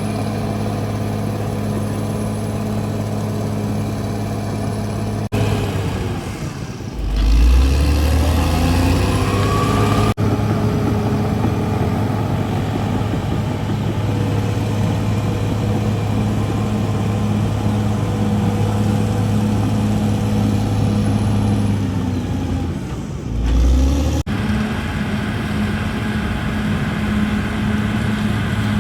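CAT D6R bulldozer's diesel engine running steadily. Twice, about a quarter of the way in and again near the three-quarter mark, the engine note drops low and the sound swells, and after the first drop a rising whine climbs.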